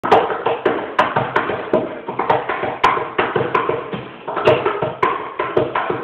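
Guitar strummed in a steady rhythm, about two sharp percussive strokes a second with the chords ringing between them.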